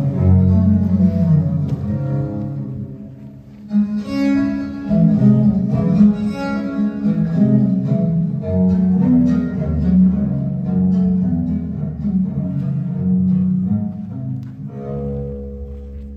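Instrumental music on string instruments, bowed and plucked. The music drops quieter a few seconds in, then new plucked notes come in sharply.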